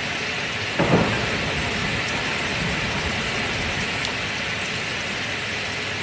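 Steady heavy rain with a sharp crack of thunder about a second in, trailing off into low rumbling.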